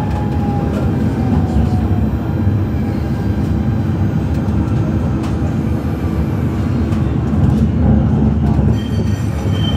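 Alstom Citadis Dualis tram-train running at speed, heard from inside the passenger cabin: a steady rumble of wheels on rail. A faint high whine fades out in the first second or so, and a few faint clicks come through.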